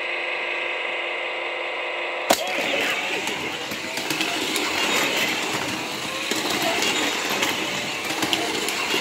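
Shake N Go Speedway toy race: a steady electronic tone from the toy, then a sharp click about two seconds in as the start gate launches the cars, followed by the battery-powered toy cars whirring around the plastic track mixed with the toy's electronic race sounds.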